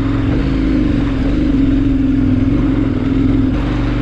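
KTM 1090 Adventure's V-twin engine running steadily at low revs under load as the motorcycle climbs a short gravel rise.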